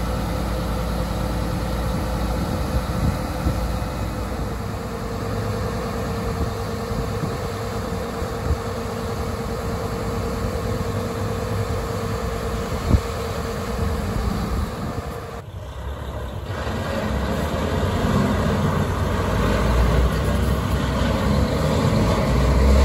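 Mercedes-Benz Actros vacuum truck's diesel engine running at idle, a steady low rumble. There is a single sharp click about 13 seconds in and a short dip a little later, and the sound grows louder over the last several seconds.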